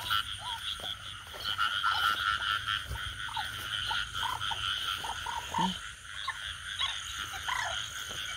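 Chorus of frogs calling: a steady, fast pulsing trill with many short separate croaks scattered through it.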